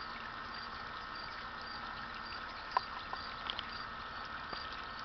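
Small pond fountain splashing steadily back into the water, with a faint high chirp repeating about twice a second and a few brief chirps about halfway through.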